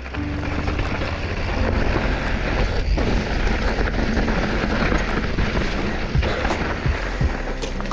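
Wind rushing over an action camera's microphone and mountain-bike tyres rattling over a rocky, eroded trail while riding, with scattered sharp knocks from rocks and the bike.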